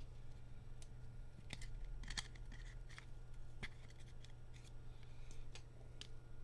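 Trading cards being handled and flipped by hand: a scattered series of light clicks and short scrapes over a low steady hum.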